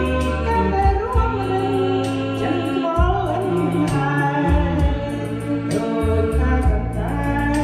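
A song playing: a voice singing over a backing track with held bass notes.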